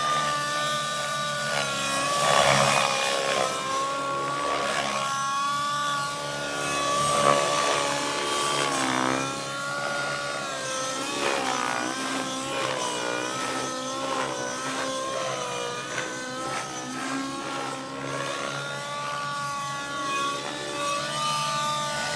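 Align T-Rex 700 radio-controlled helicopter in flight, its motor and rotor whine rising and falling in pitch again and again as it swoops and turns.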